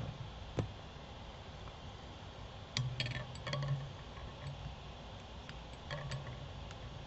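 Faint scattered clicks and light metallic clinks of a whip-finish tool and thread working at the head of a fly in the vise, with clusters of ticks about three seconds in and again near six seconds, some with a brief low hum alongside.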